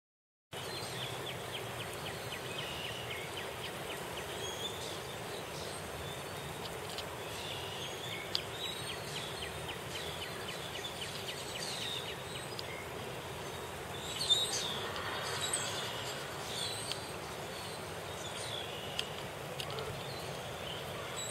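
Birds chirping and calling repeatedly over a steady rushing outdoor background noise, starting after a brief silence.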